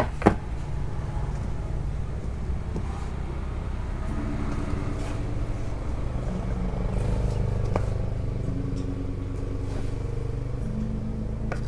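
A motor vehicle engine running steadily, its pitch shifting up and down now and then. A sharp wooden knock just after the start comes from a wooden cutting board being set down on the table, and there are a few light knife clicks on the board later.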